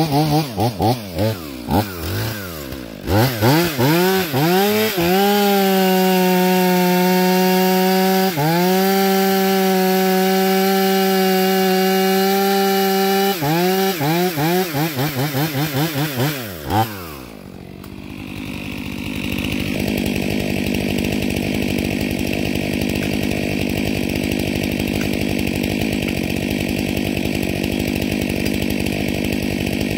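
Stihl MS 500i fuel-injected two-stroke chainsaw revving in quick blips, then held at full throttle cutting through a log for about eight seconds with a brief dip partway, more quick revs, then dropping off and settling to a steady idle for the last ten seconds or so.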